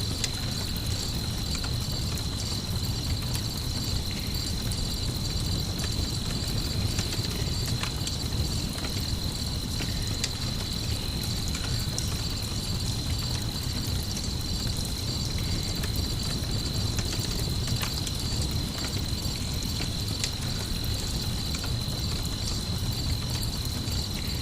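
Crickets chirping steadily in a dense, pulsing chorus over a low, even rumble, with scattered small crackles and pops from a campfire.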